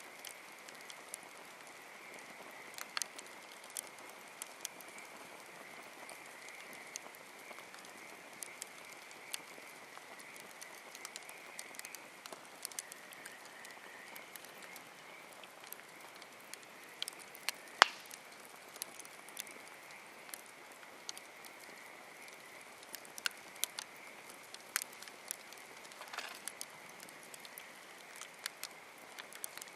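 Campfire crackling: irregular sharp pops and snaps of burning wood, one much louder pop about eighteen seconds in, over a steady faint high hiss.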